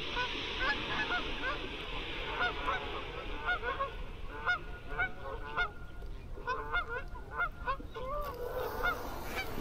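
A flock of geese calling, many short honks overlapping without a break, with a soft hiss that fades out after about three seconds.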